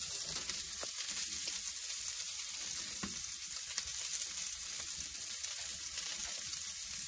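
Little smoky sausages sizzling steadily in a skillet, with a couple of light clicks as a spoon stirs macaroni and cheese in a metal pot.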